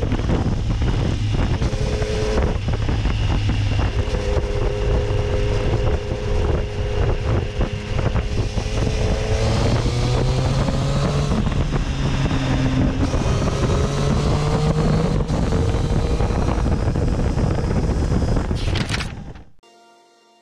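Triumph Street Triple's three-cylinder engine running under way, its pitch rising and falling with the throttle, with wind noise on the microphone. The sound fades out near the end.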